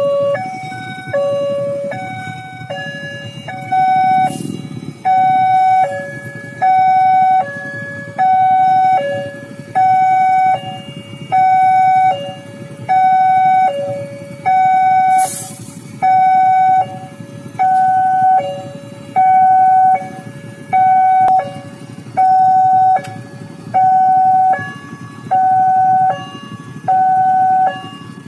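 Railway level-crossing warning alarm sounding its electronic two-tone signal, a higher and a lower tone alternating steadily, about one pair every second and a half. It signals that a train is approaching and the crossing is closed.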